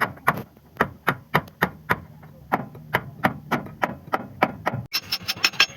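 Repeated hammer blows, about three a second, typical of work on a bus leaf spring being replaced. Near the end the sound cuts abruptly to faster, sharper, brighter strikes.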